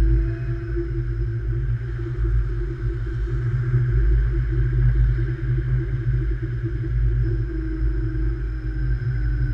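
Light rail train running along the track: a steady low rumble with a faint steady hum and a thin high whine over it.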